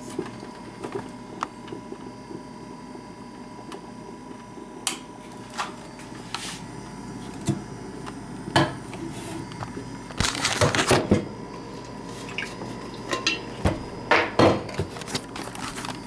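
Scattered knocks and clinks of a travel mug or coffee carafe being handled and set down, with a louder rattling clatter lasting about a second midway and a couple more knocks later.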